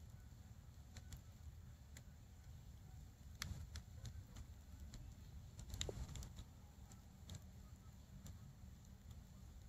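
Wood fire in a fire pit burned down to glowing embers, faintly crackling with scattered sharp pops, two of the louder ones about three and a half and six seconds in, over a low steady rumble.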